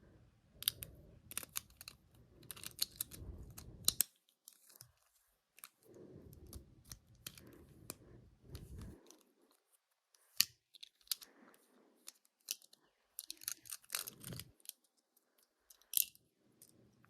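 Small plastic Beyblade top parts being handled and fitted together, with scattered light clicks and short rustling scrapes, some of them snap-like, separated by quiet gaps.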